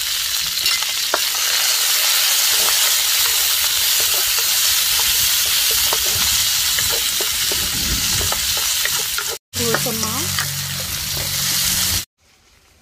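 Aromatics (shallot, chili, lime leaves and green onion) sizzling in hot oil in a hammered wok while a wooden spatula stirs and scrapes them, with small clicks of the spatula on the pan. The sizzle breaks off for a moment about three-quarters through and cuts off suddenly shortly before the end.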